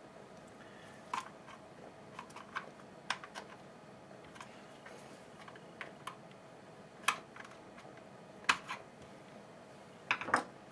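Irregular light clicks and taps of small hedge trimmer parts being handled and fitted by hand, with a quick cluster of clicks near the end.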